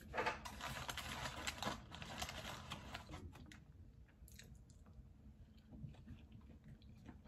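Close rustling and crinkling handling noise for about three seconds, then scattered light clicks and taps.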